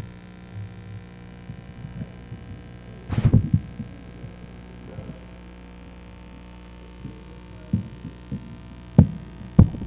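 Steady electrical hum, with a few dull low thumps: one about three seconds in and several close together near the end.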